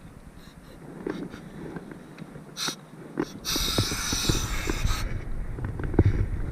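Air hissing through a scuba regulator as a breath is drawn: a brief hiss a little before halfway, then a longer one of about a second and a half, among scattered light knocks.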